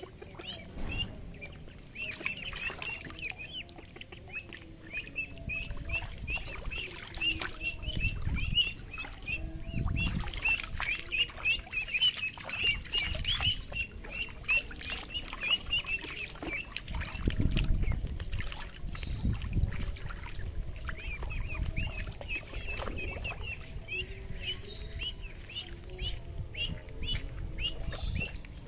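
Ducklings peeping: a rapid string of short, high calls, several a second, with brief pauses. Low, irregular water splashing and sloshing runs underneath, loudest about two-thirds of the way through.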